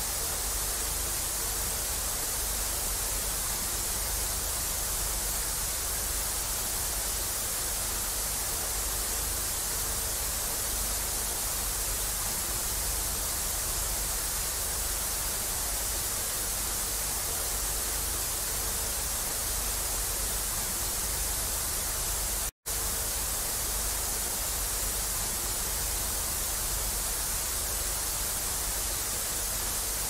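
Steady hiss of TV static, brightest in the treble, with a low rumble underneath. It cuts out completely for a split second about two thirds of the way through.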